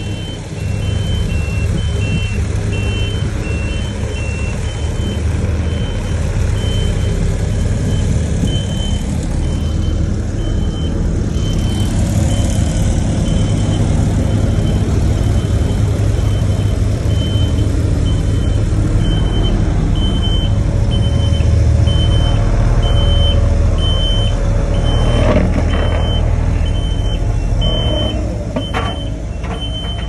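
Pneumatic-tyred road roller's diesel engine running as the roller compacts fresh asphalt, with a backup alarm beeping steadily about twice a second. A few clanks come near the end.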